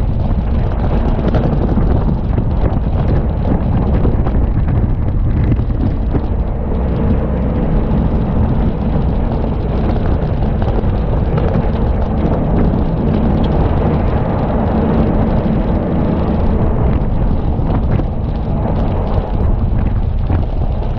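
Wind buffeting an action camera's microphone: a loud, steady low rumble with no let-up.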